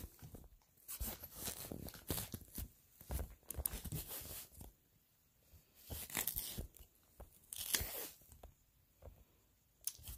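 Irregular rustling, scraping and crinkling handling noises close to the microphone, coming in short bursts with quiet gaps between them.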